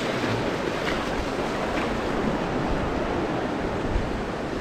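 Sea waves washing on the shore in a steady rush of surf, with wind on the microphone and a low bump of wind about four seconds in.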